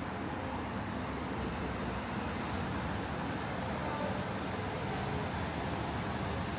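Steady city street traffic noise, an even rumble of road vehicles with no single one standing out.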